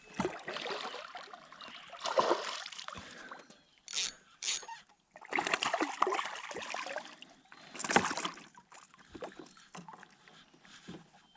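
A hooked bass being brought in and landed: irregular water splashes and sloshing, with a few sharp knocks and rustles from handling.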